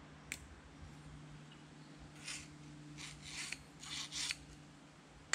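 Coiled spring of a car sunshade roller being worked by hand, giving several short rasping scrapes in the middle stretch, with a sharp click just after the start and another at the end.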